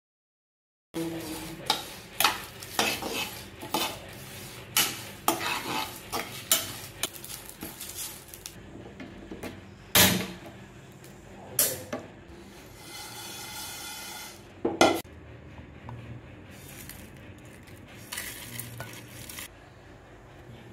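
A metal spoon stirring and scraping dry whole spices (cinnamon sticks, bay leaves, coriander seeds) around a steel pan, with a light dry sizzle, as the spices are dry-roasted for garam masala. Scrapes and clinks start about a second in, with a few louder clanks of spoon on pan around the middle.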